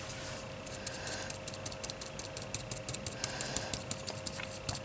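Paintbrush dabbed rapidly onto paper through a stencil, dry-brush style: quick, light tapping, several taps a second.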